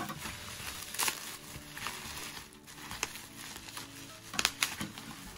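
Bubble wrap crinkling and rustling as it is unwrapped by hand, with a few sharper crackles about a second in and again near the end. Soft background music plays underneath.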